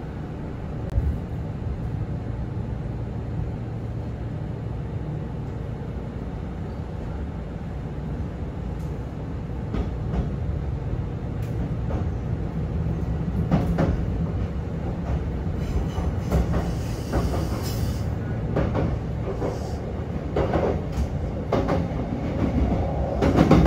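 Inside a Kintetsu 6400-series electric train moving slowly out of a station, a low steady running rumble. Sharp wheel clacks over rail joints and points start about halfway through and grow louder and more frequent as it picks up speed.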